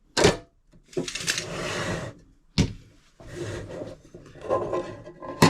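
Small metal drawers of a mini steel tool chest sliding along their runners, with three sharp clunks as they shut or hit their stops.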